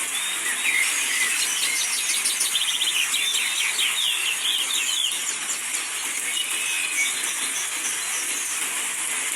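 Small birds chirping and giving rapid trills over the steady hiss of falling rain; the bird calls are busiest in the first half.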